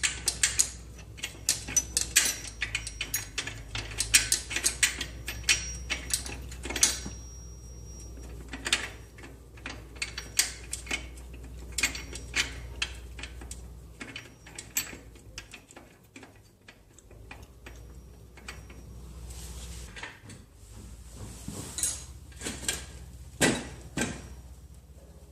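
Metal tools and parts clinking and clattering as a motorcycle chain is worked off. Rapid clicks with a brief metallic ring come thick for the first several seconds, then turn sparser, with a few louder knocks near the end.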